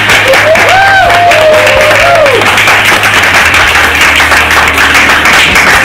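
Audience applauding steadily, a dense patter of many hands clapping. A voice is briefly heard over it in the first two seconds or so.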